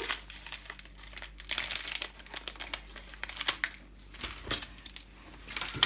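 Crinkling and rustling of a tube of refrigerated puff pastry dough and the aluminium foil lining a baking tray as the tube is handled and pressed against the tray, with irregular sharp crackles and a louder crack near the end.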